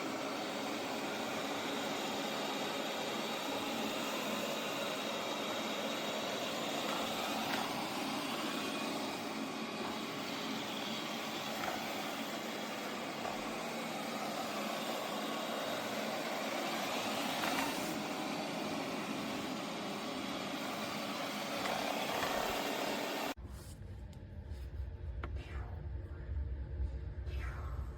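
Robot vacuum's suction fan running with a steady whir. It cuts off abruptly a few seconds before the end, giving way to a low rumble.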